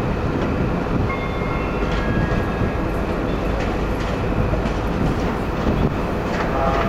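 CrossCountry High Speed Train passing slowly, its Class 43 power car's MTU diesel engine running steadily under the rumble and clatter of the wheels over pointwork, with a few faint high squeals.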